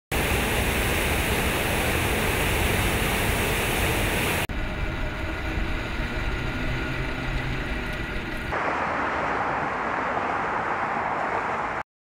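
Steady roar of city street traffic, cut together from three pieces that change abruptly about four and a half and eight and a half seconds in. The middle piece carries a few steady tones. It stops suddenly near the end.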